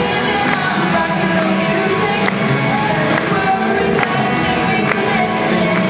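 Rock band playing a song live, a singer over drums and guitars, with drum hits landing about once a second.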